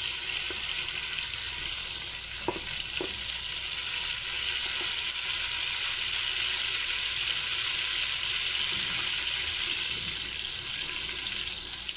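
Cumin seeds and whole black pepper sizzling steadily in hot oil and butter, tempering in the pot as a wooden spoon stirs them. Two light knocks come about two and a half and three seconds in.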